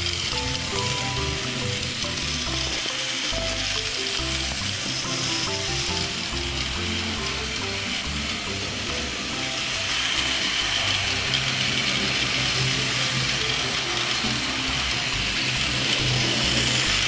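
Small battery-powered toy train running on a plastic track: its motor and gears whir and rattle steadily with a hiss that grows stronger about two-thirds of the way through. A simple tune of short notes plays over it.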